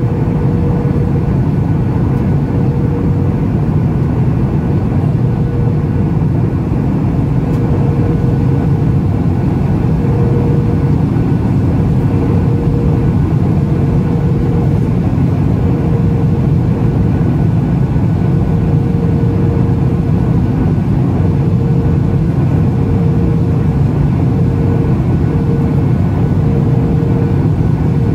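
Steady cabin noise of a Boeing 737 MAX 8 climbing after takeoff, heard from a window seat over the wing: the deep, even drone of its CFM LEAP-1B engines and rushing air, with a faint hum that drifts in and out.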